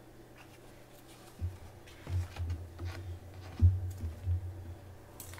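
Handling noise from a printed card sheet being shifted and folded over a wooden frame on a tabletop: faint light taps, then dull low thumps off and on from about a second and a half in.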